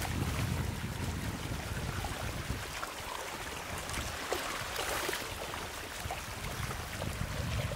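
Floodwater splashing and trickling, with the busiest splashing about four to five seconds in. Wind rumbles on the microphone for the first couple of seconds.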